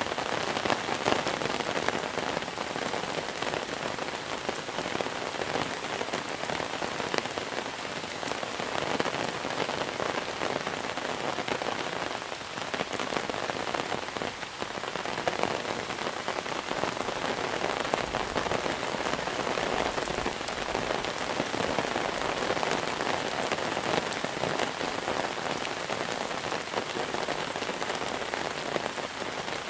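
Monsoon rain falling steadily: a dense, even hiss of drops with fine patter throughout.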